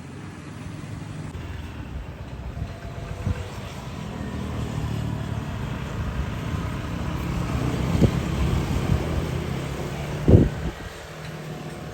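A motor vehicle's engine running steadily and growing louder toward the middle, with a short thump about ten seconds in.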